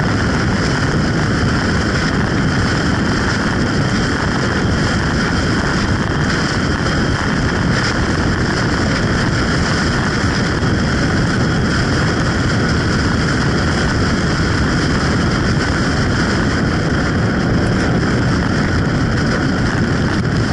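Motorcycle riding at steady road speed: wind rushing over the microphone with engine and tyre noise, constant throughout.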